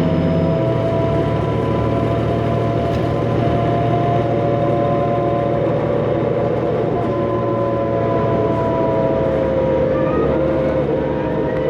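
Cummins ISL turbo-diesel of a New Flyer D40LF bus running under way, a low engine rumble under a steady turbocharger whine of several tones that drift slowly in pitch. The engine tone shifts about half a second in, and faint rising whines come in near the end.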